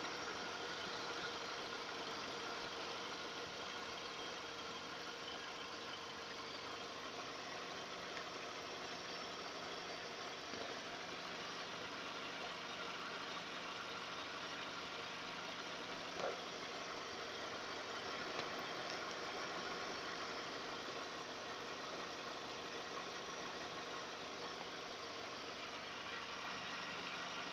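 Audi A4's 1.6-litre four-cylinder engine idling steadily, with one short click about sixteen seconds in; the owner asks whether the sound it makes is normal.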